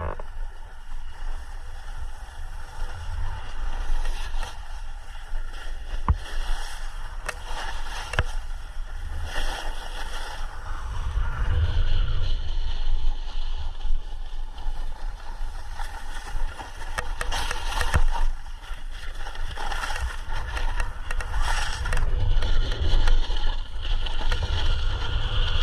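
Skiboards sliding and carving over snow on a downhill run, the hiss of the bases swelling and fading with the turns and a few short sharp edge scrapes. Wind rumbles on the microphone underneath.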